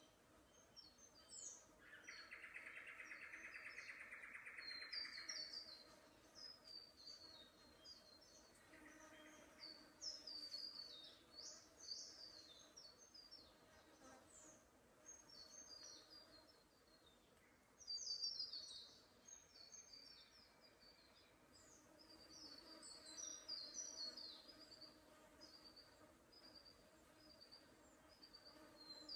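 Small forest birds calling with many short, high chirps and twittering notes, faint overall. About two seconds in, an insect buzzes for a few seconds.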